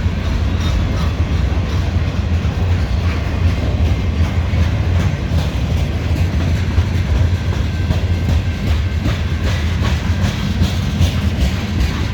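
CSX mixed freight train rolling past, the cars giving a steady heavy rumble with wheels clicking over rail joints.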